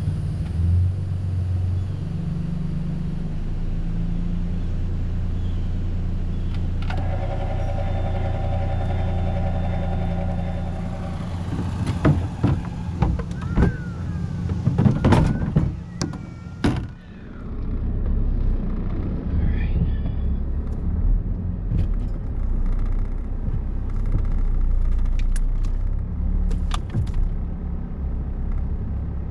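Steady low rumble, with a run of sharp knocks and clatter in the middle as a plastic storage-box lid is opened and handled. After a brief dip, the low rumble of a vehicle driving returns.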